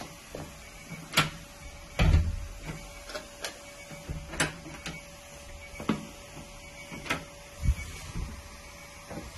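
Irregular clicks and knocks in a small room, with a heavier low thump about two seconds in and several sharper clicks after it, over a faint steady hum.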